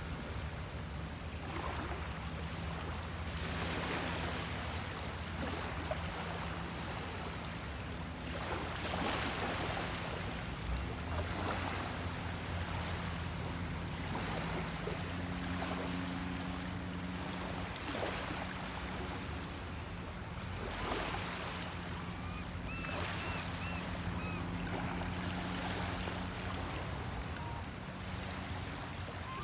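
Small waves lapping and washing in over a sandy beach at low tide, swelling softly every second or two, over a steady low hum. A few faint high chirps come about three-quarters of the way through.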